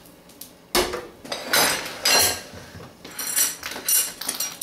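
Kitchenware being handled and moved about on a counter: a string of knocks and clinks from pans, dishes and utensils.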